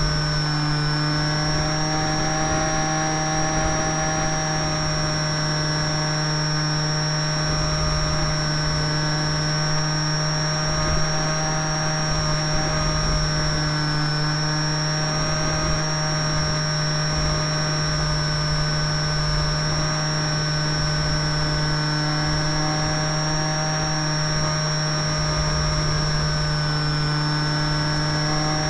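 Motor and propeller of a radio-controlled canard model plane running at a steady throttle in flight: a steady drone with a thin high whine above it that dips slightly in pitch now and then, over an uneven low wind rumble on the microphone.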